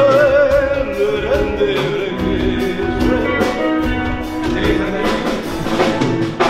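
Music with a steady drum beat and a wavering melody line.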